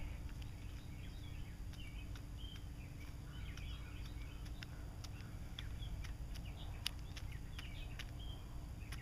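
Hen pecking at a pile of feed pellets and scraps, a scatter of short sharp pecks over a low steady background rumble, with small birds chirping faintly now and then.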